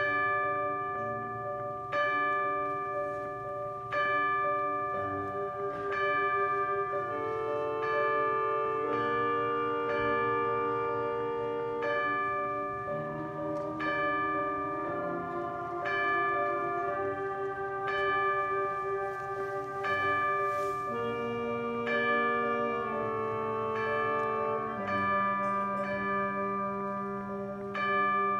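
High school concert band playing a slow passage: held wind chords that shift from time to time, with a struck note sounding about every two seconds.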